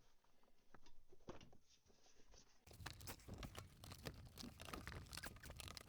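Faint crinkling and rustling of a bag or packaging being handled, sparse at first and more continuous from a little before halfway.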